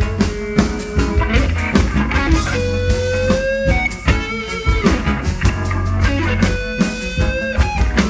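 Live electric guitar solo: lead notes held and bent in pitch, over a band's drum kit and bass groove.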